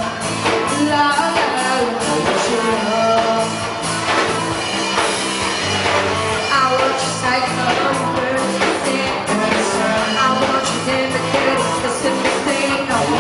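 Live pop-rock band playing at full volume: drums, bass, electric guitar and keyboards, with sung vocals over them.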